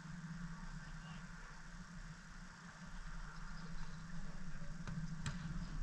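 Steady low rumble of outdoor background noise, with two short sharp knocks near the end.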